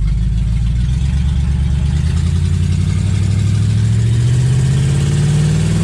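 AMC 290 V8 engine of a 1969 AMC Rebel, heard from inside the cabin as the car pulls away. The engine note rises steadily as the car gathers speed.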